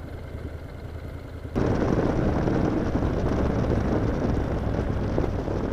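Motorcycle engine and road noise heard from the rider's helmet camera: a quieter low engine hum, then an abrupt jump about one and a half seconds in to louder, steady engine and wind rumble as the bike rides along.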